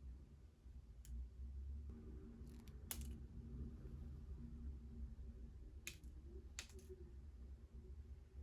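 Quiet room tone with a low hum, broken by a few light, sharp clicks: one about a second in, one near three seconds, and two close together around six seconds.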